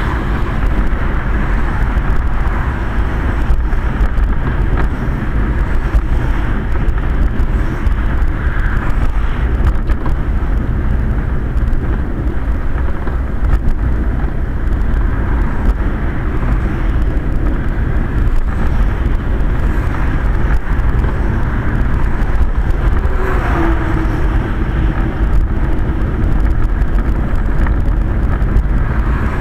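Steady rumble and rushing noise inside a Quest velomobile's enclosed hood as it rolls along a wet road in the rain: tyre and road noise with wind against the shell.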